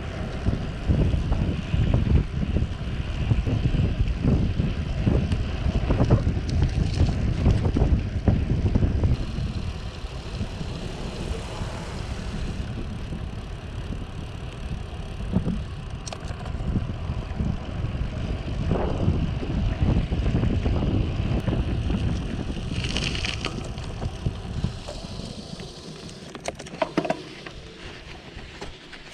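Wind buffeting the camera microphone on a moving Trek 1400 aluminium road bike, a heavy low rumble that is strongest over the first third and then eases off. A few scattered clicks come later, and the level falls toward the end.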